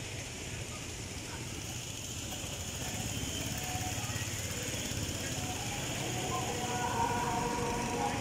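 Go-kart engines running on the track at a distance, slowly growing louder toward the end as karts come nearer.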